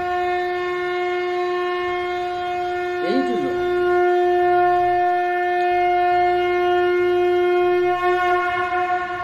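Conch shell (shankha) blown in one long, steady note, wavering slightly near the end. A brief swooping sound rises and falls about three seconds in.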